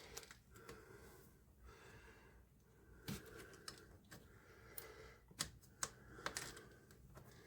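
Faint clicks and light taps of a small screwdriver and plastic parts being handled while the tiny screws holding a monitor's joystick board are worked loose, a few sharper clicks about three seconds in and several more between five and six and a half seconds.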